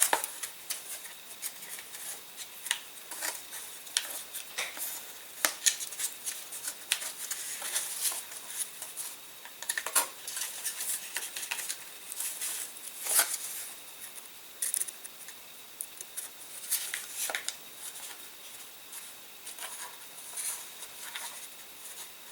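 Small hobby servos being handled and slid into place on a model aircraft wing: scattered light clicks, taps and rustles of small plastic parts, a few sharper clicks among them.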